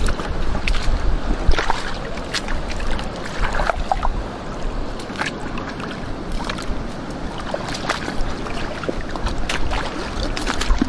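Wading through shallow seawater in rubber boots: irregular sloshing and splashing of water around the feet and hands, with water dripping off a wet glove, over a steady low rumble.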